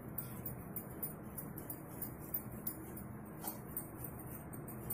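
Faint, irregular scraping and light clicking of a fine-holed hand grater as boiled egg white is grated on it, over a steady low hiss.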